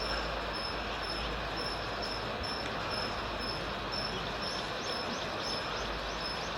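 Steady rushing background noise with an insect chirping a regular high pulse, about twice a second, and a quick run of thin rising chirps about two-thirds of the way through.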